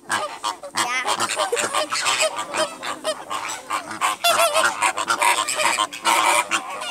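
A large flock of flamingos honking, many goose-like calls overlapping without a pause.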